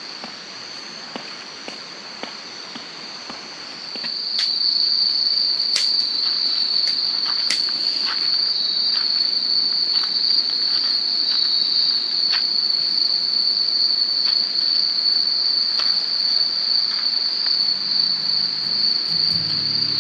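Insects, crickets or similar, trilling in one steady high-pitched drone that grows louder about four seconds in, with scattered sharp clicks. Music comes in near the end.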